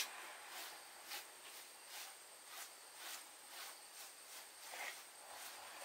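Faint rhythmic rubbing or scraping strokes, about two a second.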